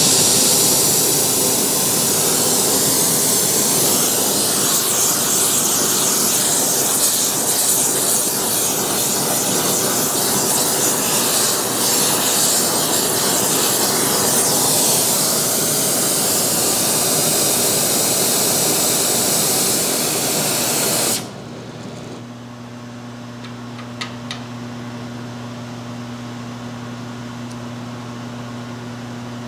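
Brazing torch burning with a loud, steady hiss, shut off suddenly about three-quarters of the way through. A steady low hum remains after it, with a couple of faint clicks.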